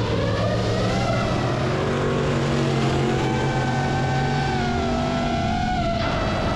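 FPV quadcopter motors and propellers whining, their pitch gliding up and down with the throttle.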